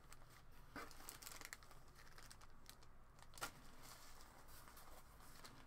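Faint rustling and crinkling of plastic packaging bags being handled, with a couple of soft knocks about a second in and midway.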